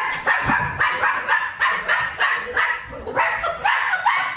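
A small puppy yipping over and over, about three short yips a second.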